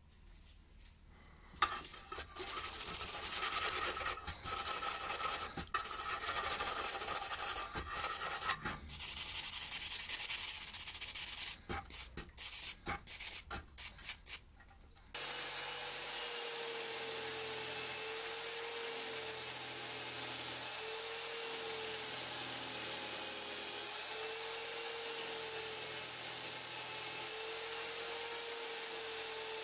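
A stiff hand brush scrubs a rusty scissor blade in rapid strokes, in uneven bursts with short pauses. About halfway through, it changes to a bench-mounted wire brush wheel spinning steadily with a slightly wavering tone as the blade is held against it to strip the rust.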